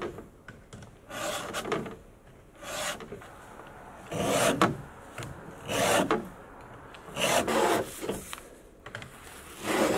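Round chainsaw file in a filing guide rasping across the cutter teeth of a Stihl MS 250's chain, about six slow strokes one every second and a half or so. The file is re-cutting gullets that had ridden up on the dull teeth, so it bites into the metal.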